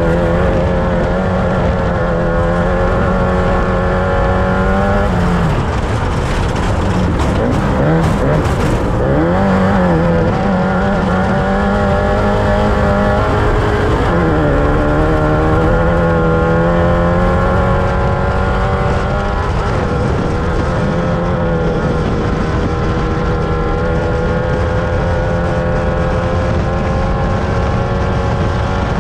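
Off-road race vehicle's engine running hard at a steady speed. About five seconds in its pitch drops, then rises and falls several times as the throttle comes off and back on, before it settles into a steady pull again.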